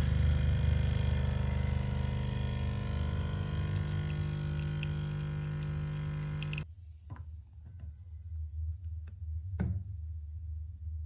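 Espresso machine's pump humming steadily while coffee runs into a glass mug, cutting off suddenly about two-thirds of the way through. After that it is quieter, with a few soft clicks and taps.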